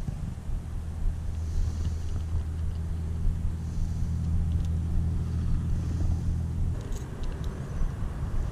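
A steady low engine-like drone that stops suddenly about two-thirds of the way through, with faint light rustling and ticks over it.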